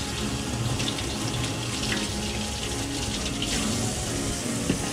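Kitchen tap running, its stream splashing onto a bottle blender's blade base held under it in a stainless steel sink. A light knock near the end.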